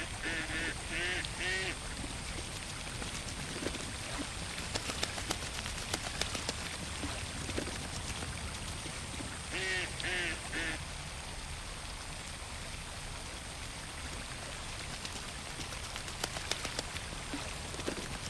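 Ducks quacking in short runs of a few calls, once at the start and again about ten seconds in, over a steady watery background with scattered small splashes and drips.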